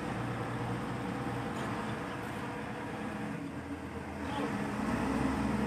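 Diesel engine of a Caterpillar wheel loader running, getting louder about three and a half seconds in as the loader lifts its bucket of palm fruit up to the truck.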